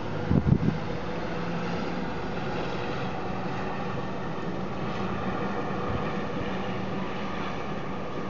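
A quick cluster of low thumps about half a second in, from distant fireworks bursting, over a steady background rumble with a faint hum.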